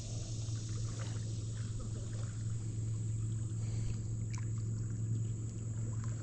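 A steady low motor hum with faint scattered ticks over it.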